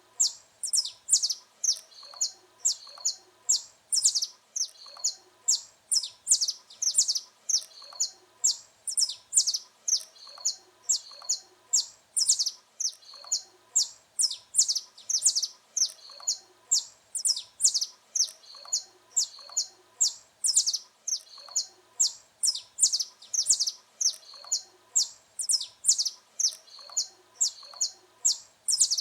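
Saffron finch (canário-da-terra) singing: an unbroken run of sharp, high chirping notes, about three a second, with barely a pause between phrases.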